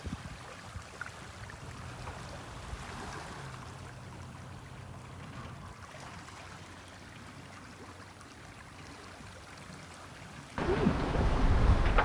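Water rushing and splashing past a sailing yacht's hull and wake. About ten seconds in, it becomes much louder, with wind buffeting the microphone over the water noise.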